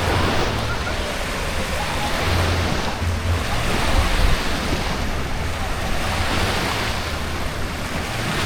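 Steady rush of splashing water, swelling and easing every couple of seconds, with a low wind rumble on the microphone.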